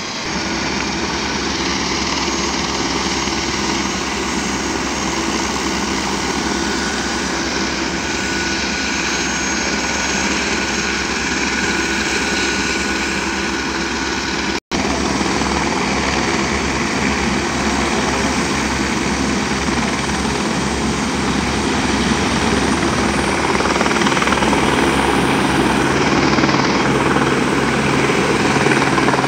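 Helicopter turbine and main rotor running on the ground, with a steady rotor beat, growing a little louder near the end as the helicopter lifts off. The sound cuts out for an instant about halfway through.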